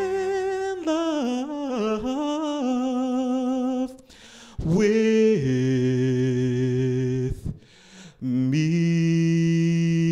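A man singing unaccompanied into a handheld microphone: long held notes with a wavering vibrato and sliding runs up and down. The voice breaks off briefly twice, about four seconds in and again about seven and a half seconds in, before a steady held note near the end.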